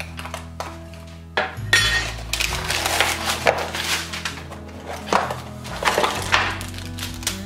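Soft background music with steady bass notes, over the knocks and rustles of flat-pack parts being unpacked: cardboard and paper sliding, and wooden pieces and metal brackets knocking on the table.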